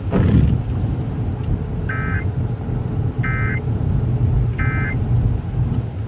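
Three short bursts of Emergency Alert System end-of-message data tones, the warbling digital squawk, coming through a car's FM radio, spaced a little over a second apart. They play over the car's steady low running hum.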